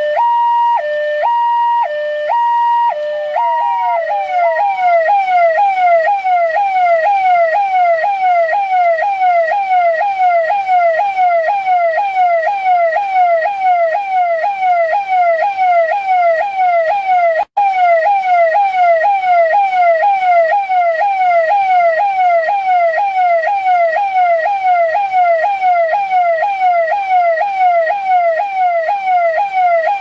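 Delhi Police car siren, first in a high-low two-tone pattern, then switching about four seconds in to a fast warbling yelp that sweeps up and down two to three times a second. It breaks for a split second about 17 seconds in.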